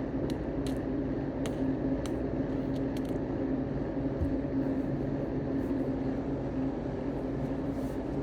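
Steady low mechanical hum at an even level, with a few faint clicks in the first three seconds.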